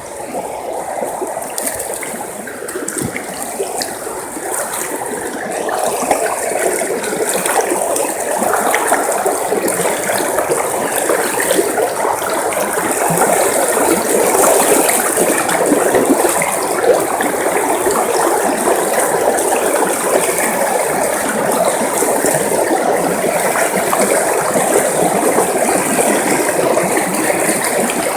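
River water rushing steadily, a dense noise full of fine crackling splashes, growing a little louder over the first several seconds and then holding steady.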